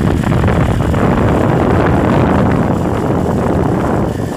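Wind buffeting the microphone over the rumble of a vehicle moving along a rough dirt track, a loud, steady blustering noise that eases a little near the end.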